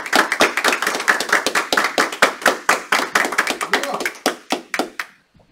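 A small group of people applauding, the separate hand claps easy to pick out, thinning out and stopping about five seconds in.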